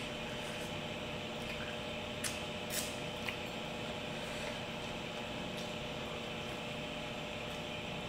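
Steady mechanical hum of room background noise. A few faint short clicks of eating come about two to three seconds in.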